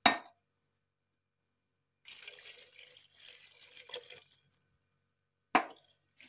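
Water poured from a steel jug into a pressure cooker of chicken pieces, splashing for about two and a half seconds. A sharp knock at the start and another about five and a half seconds in are the loudest sounds.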